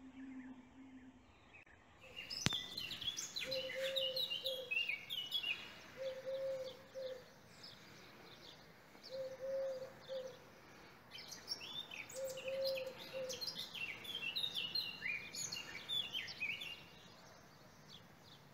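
Songbirds chirping and twittering in a birdsong recording, with a low call repeated about every three seconds and a single sharp click about two seconds in.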